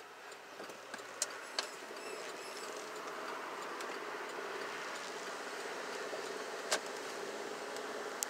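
Car cabin road and engine noise as the car pulls away from a stop and picks up speed, growing louder over the first few seconds and then steady. A few sharp clicks stand out.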